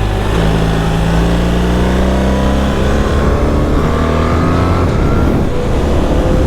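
BMW R1300GS boxer-twin engine under hard acceleration on a straight, its pitch rising steadily and dropping back at two upshifts, about three and five seconds in, with steady wind and road noise.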